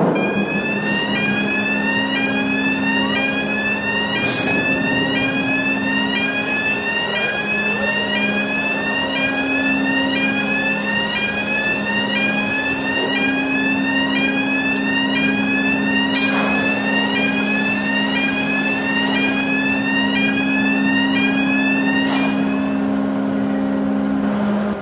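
A ferry car-deck warning alarm repeating a rising whoop about once a second over the steady hum of hydraulic machinery, while the stern gear is moved. A few clunks come through along the way. The alarm stops near the end, and the hum cuts off just after.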